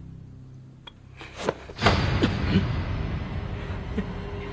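A sudden thud about two seconds in, followed by rustling and scuffling of cloth and bodies.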